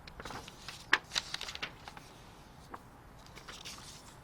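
Paper rustling and soft clicks as old hardcover books are handled and their pages leafed through, busiest about a second in, then only a few faint ticks.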